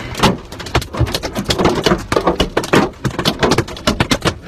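Hailstones pelting a car, heard from inside the cabin: a loud, dense, irregular clatter of many impacts a second, the hail battering the car hard enough that the owner calls it totaled.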